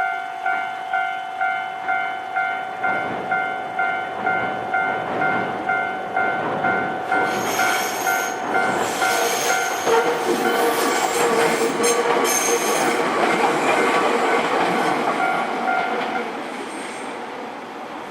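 Japanese level-crossing warning bell dinging about twice a second while a Nankai electric train comes up and passes over the crossing. The train is loudest a little past the middle, with rail noise and a high whine, and fades toward the end. The bell stops a couple of seconds before the end.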